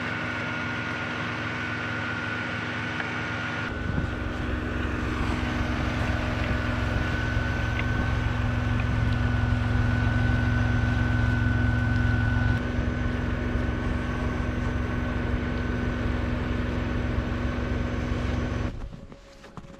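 Smittybilt XRC electric winch running, with a steady whine. About four seconds in a deeper rumble comes in, and the sound stops abruptly near the end.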